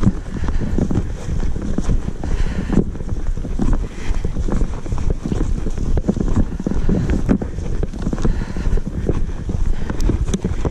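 Wind buffeting a body-worn camera's microphone, with a person's footsteps brushing and crunching through dry grass while walking briskly.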